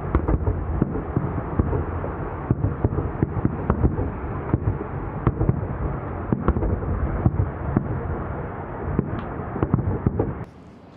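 Fireworks barrage: many bangs and pops in quick, uneven succession over a steady rumble, which cuts off near the end.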